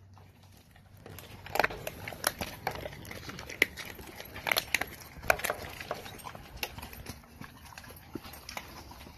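American Bully dog eating dry kibble mixed with raw meat from a bowl: a string of irregular sharp crunches as it chews, starting about a second in.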